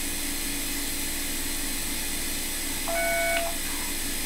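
iTero digital dental scanner giving one short electronic beep about three seconds in, the signal that it has captured a scan image, over a steady background hum.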